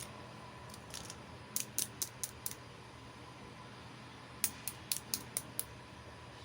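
Light, sharp clicks of small hard toy pieces being handled, in two quick runs of five or six clicks each, over a faint steady hum.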